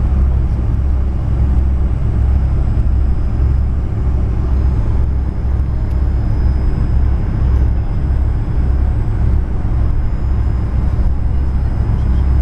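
Steady low rumble of a jet airliner's engines and cabin noise at taxi power, heard from inside the cabin.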